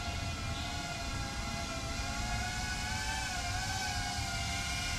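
FPV quadcopter's motors and propellers whining at a fairly steady pitch, the tone wavering and dipping briefly a little past halfway, over a low rumble.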